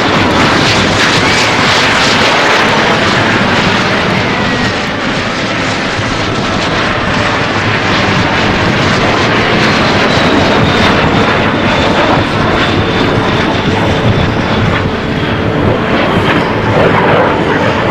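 Jet engines of the Snowbirds' formation of Canadair CT-114 Tutor jets flying past, a loud continuous noise with a whine that bends in pitch in the first few seconds and a fainter high tone that falls slowly later on.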